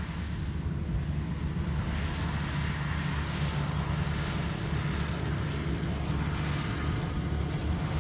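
Rice combine harvester running steadily, a low engine drone under a constant rushing noise from the machine at work.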